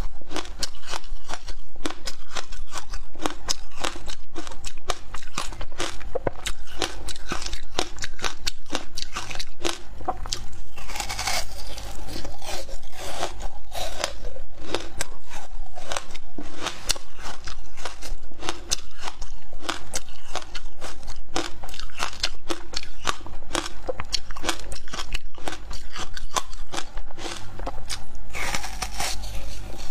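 Close-up crunching of a slab of frozen flavoured ice being bitten and chewed: a dense, continuous run of sharp cracks and crunches.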